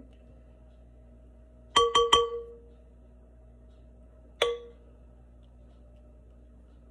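A ceramic Lenox Chinastone bowl struck by a utensil: three quick ringing clinks about two seconds in, then a single clink about two seconds later.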